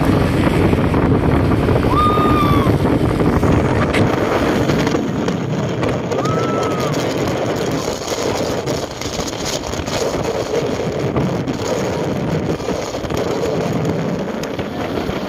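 Wind buffeting the microphone over the road noise of a moving vehicle, a steady rushing rumble that eases a little after the middle. Two short whistle-like notes rise and fall, about two seconds in and again about six seconds in.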